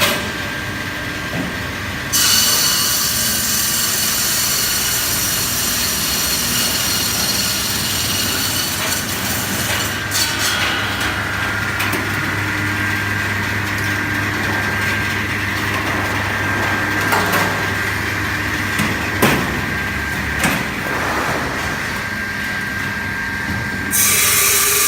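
Electric twelve-blade ice-block cutting machine running, a steady motor hum with a hiss that gets louder about two seconds in. A few sharp knocks come about three-quarters of the way through.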